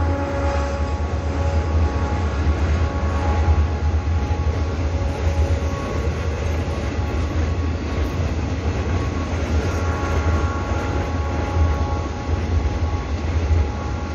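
Long container freight train rolling steadily past, its wagons making a continuous heavy low rumble of wheels on rail, with faint steady tones fading in and out over it.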